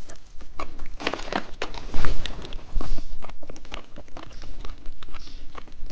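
Close-miked candy eating: crunching, crackling and clicking of sweets and wrappers, with louder crunches about two and three seconds in.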